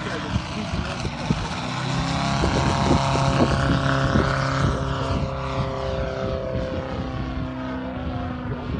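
Valach 420 engine and propeller of a 4.5 m Yak 54 model aerobatic plane running in flight. It grows louder as the plane makes a low pass about three to four seconds in, then eases off as it climbs away.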